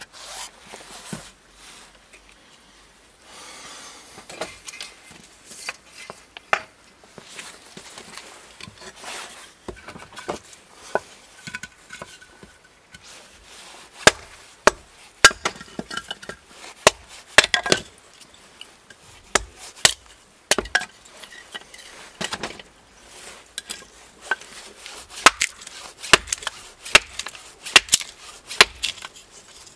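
A hatchet chopping a wooden board into kindling sticks on a tree-stump chopping block: sharp wooden knocks and splitting cracks. They are sparse in the first half and come quickly from about halfway.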